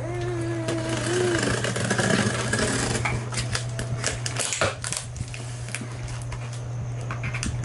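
Packing tape along a cardboard box seam being slit with a small cutter: scratchy scraping and crinkling with scattered clicks, as the tape splits and the cardboard flaps rustle. A short hummed voice note comes in the first second or so.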